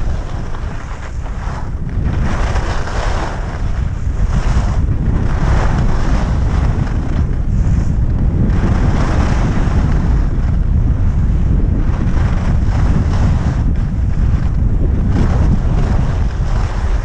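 Wind rushing over the microphone of a skier's camera during a downhill run. The scrape of skis on packed snow swells every second or two as the turns are made.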